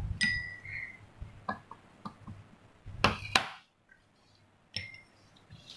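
Glass rod clinking against laboratory glassware and a dish: a few light taps and clinks, a couple ringing briefly, with two louder knocks about three seconds in.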